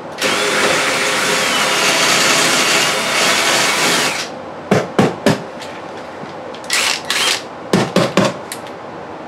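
Ryobi cordless impact driver with a 7/16 socket hammering on a rusted toilet closet-bolt nut in one long run of about four seconds, then several short bursts, backing the nut off.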